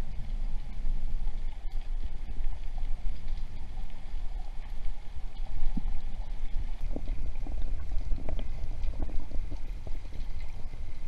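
Underwater river ambience recorded with the camera submerged: a muffled, steady low rumble of flowing current, with scattered faint ticks and clicks in the second half.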